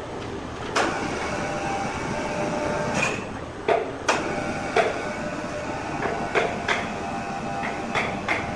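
Sawmill machinery running steadily, with a faint hum, broken by about nine sharp wooden knocks and clacks at irregular intervals as blocks are handled around the saw.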